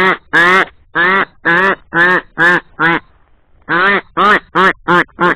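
Loud mallard-style quacking in two descending runs, each opening with long quacks that grow shorter and quicker, with a short pause about three seconds in: the pattern of a hen mallard's hail call.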